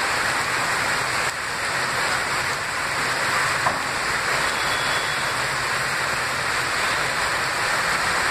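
Heavy rain pouring down onto a flooded street: a steady, even hiss.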